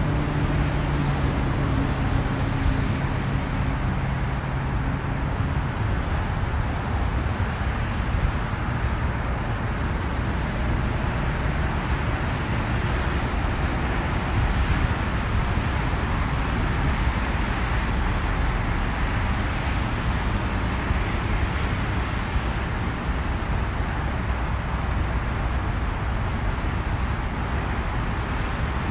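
Steady roar of road traffic with wind on the microphone. A low droning hum runs under it and stops about six seconds in.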